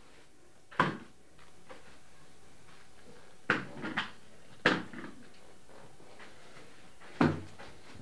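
Broom handle knocking against a wooden ceiling: five sharp knocks at uneven intervals, each with a short ring after it.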